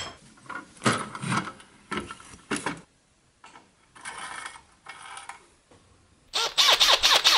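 Workshop tool handling in three parts. First a cast-iron bench vise is cranked tight in several short clanks. Then drill bits rattle in a metal index case as one is picked out. Near the end a Makita cordless drill motor runs in short loud bursts that rise and fall in pitch.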